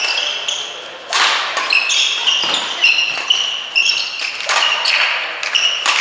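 Badminton rally: several sharp cracks of rackets striking the shuttlecock, mixed with short high squeaks of players' court shoes on the hall floor.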